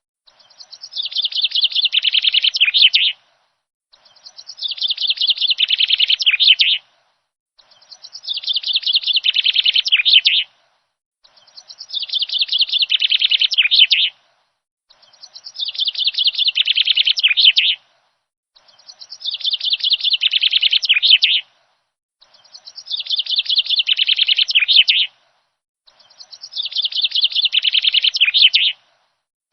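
Birdsong on a loop: the same fast run of chirps, growing louder over about three seconds, repeats eight times with short silent gaps between.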